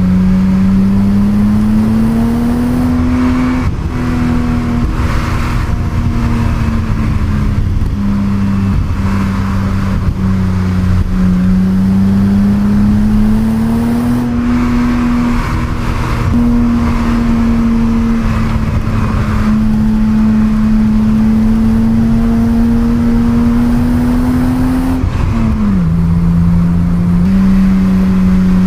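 Stock 1988 BMW 325i E30's 2.5-litre straight-six engine pulling under way with its standard exhaust. The engine note climbs and eases off in long stretches, with short dips where the revs fall and one sharper drop about 25 seconds in.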